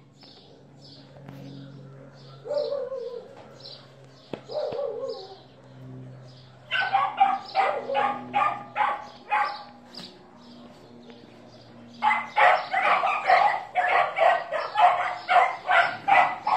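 A dog barking in quick runs of about three barks a second: one run a little under halfway in, then a longer, louder run near the end. Two shorter falling yelps come a few seconds before.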